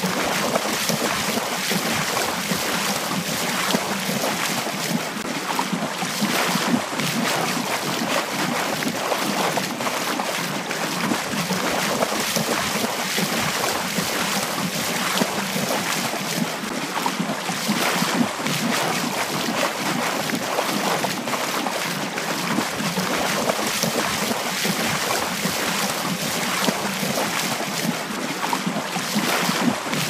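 Steady rushing noise, like wind and surf, running evenly with no distinct events.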